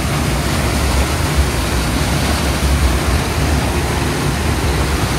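Flowing stream water rushing steadily, with a strong low rumble beneath it.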